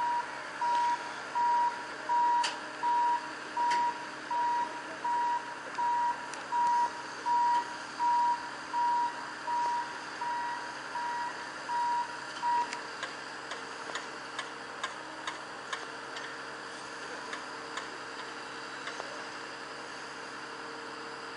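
Motion warning beeper on railway engineering plant, sounding a single steady tone in evenly spaced beeps, about one every 0.7 seconds. It stops a little over halfway through, leaving a few faint clicks over a steady background hum.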